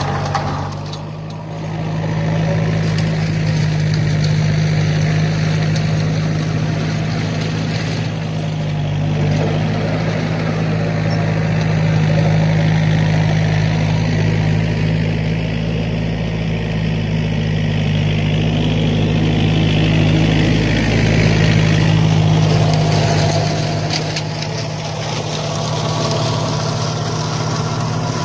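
New Holland TCE 50 tractor's diesel engine running steadily while driving an Agricom flail mulcher through weeds, a loud steady drone.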